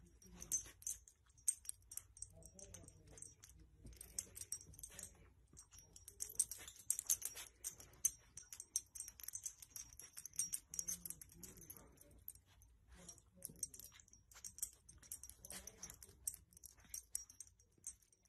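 Small dog pawing and nosing at a soft blanket: faint, irregular rustling and scratching of fabric with soft crackles throughout.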